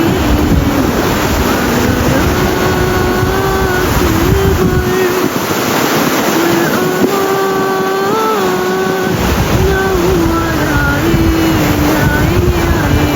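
A voice singing a slow, ornamented tarab melody in long held notes with small turns and slides. Under it run a heavy wind rumble on the microphone and the wash of sea waves. The rumble drops away for a few seconds in the middle.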